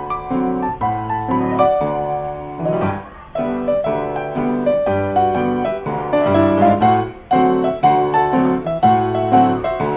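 Ragtime piano piece playing: a steady rhythmic bass and chords under a melody.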